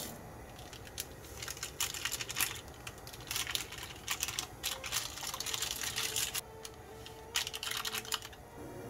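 Quick, irregular clicks and taps of cooking preparation, starting about two seconds in and stopping near the end.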